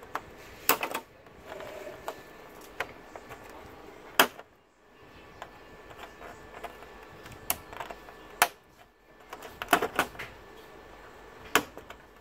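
Sharp plastic clicks and snaps at irregular intervals as a thin metal pry tool works loose the clips of an LED TV's plastic panel frame. The loudest snap comes about four seconds in.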